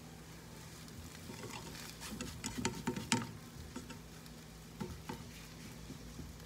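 Plastic spatula scraping and clicking against a nonstick frying pan as scrambled eggs are stirred and scraped off the bottom, with the eggs frying. The scrapes come in a quick cluster about two to three seconds in, then a few more near the end.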